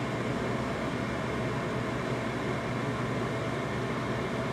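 Steady, even background hiss and low hum, like a running fan, with no distinct events.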